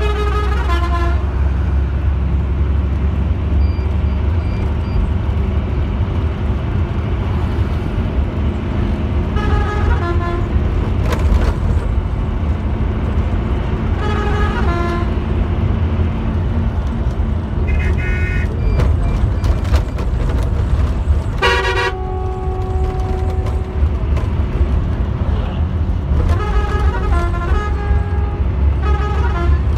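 Heard from inside the cab of a moving intercity bus: the engine's steady low drone with road noise, and about six short horn blasts. Some blasts hold one note and others step between several pitches.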